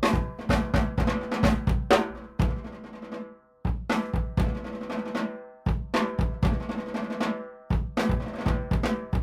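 Mapex Armory Peacemaker maple/walnut snare drum, tuned high, played in a groove with a bass drum; each snare stroke rings with a sustained pitched overtone. The playing comes in short phrases, stopping three times to let the ring die away before starting again.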